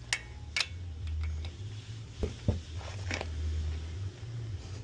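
Hand tools on a car's wheel lug nuts: a few separate short metallic clicks and knocks over a steady low rumble.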